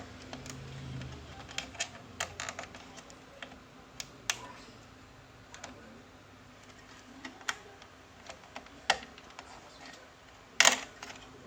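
Irregular sharp clicks and taps of tools and small parts being handled while an LCD TV is dismantled, with a louder clatter near the end.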